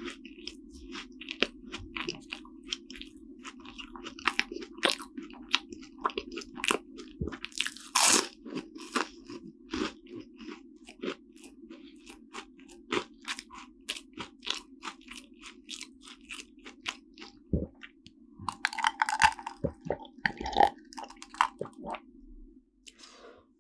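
Crunchy chewing of flaky croissant pastry close to the microphone, a rapid run of crisp crackles with one loud crunch about eight seconds in. Near the end come a few sips from a mug.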